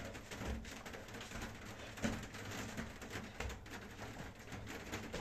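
Bare feet landing on a thin exercise mat during jumping leg exercises, a series of soft thuds roughly once a second.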